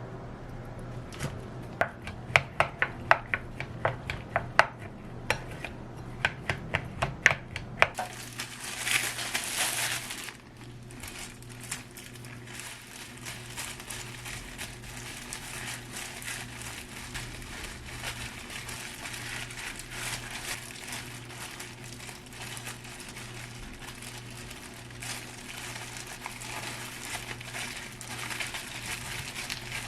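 Home cooking sounds: a run of sharp knocks, about three a second, for the first eight seconds, then a loud hiss for about two seconds, then steady light crackling and small clatter over a low hum.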